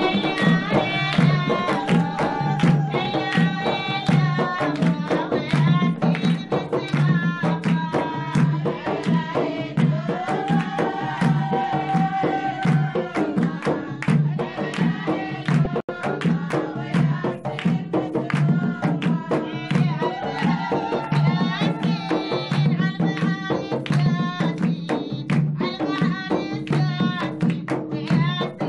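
Folk music with a busy, steady hand-drum rhythm under a gliding, sustained melody.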